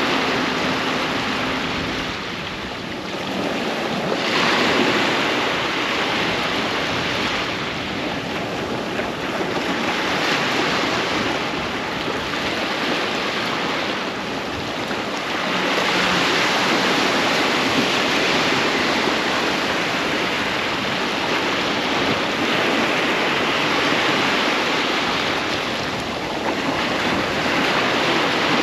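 Ocean surf breaking on a beach: a continuous wash of waves that swells louder every few seconds as each wave breaks and runs up the shore.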